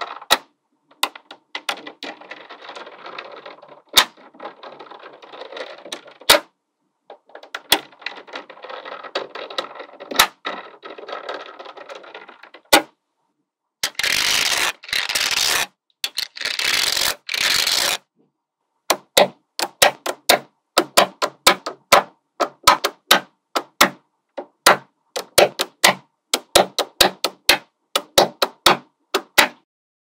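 Small magnetic balls being handled. First comes a fine rattling clatter as loose balls are shuffled, with occasional sharp clicks. About halfway through there is a louder rush in several pulses, as a mass of balls is stirred or poured, and then a long run of sharp clicks, several a second, as balls snap together one by one.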